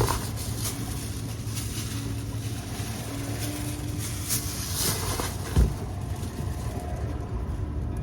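Wind buffeting the phone's microphone over a low steady hum, with one dull thump about five and a half seconds in.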